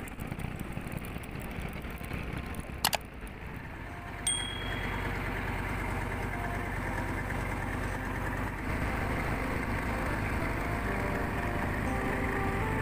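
A motor riverboat's engine runs steadily with a low hum. There is a sharp click near 3 seconds and a short high beep about 4 seconds in, and faint music notes come in near the end.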